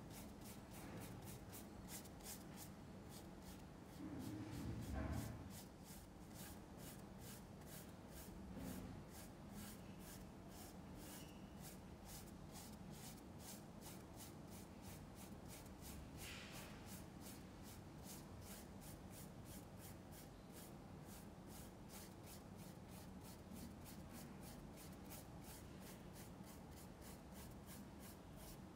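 Faint scratchy scrubbing of a paintbrush working oil paint on canvas, in quick, even back-and-forth strokes about three a second. A low bump about four seconds in.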